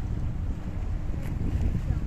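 Wind buffeting the microphone, a heavy low rumble, with a faint steady hum underneath.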